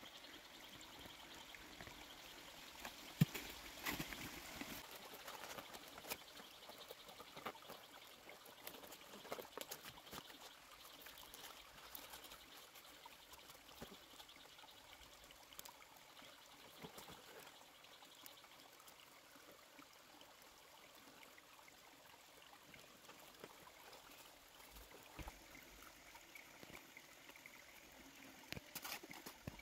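Faint trickling water with scattered small clicks and knocks throughout.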